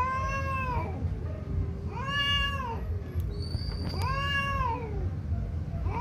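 Tomcats yowling in a territorial standoff: three long caterwauls about two seconds apart, each rising then falling in pitch.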